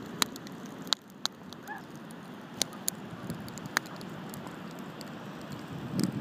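Wood bonfire crackling, with scattered sharp pops over a steady rushing background. Wind buffets the microphone near the end.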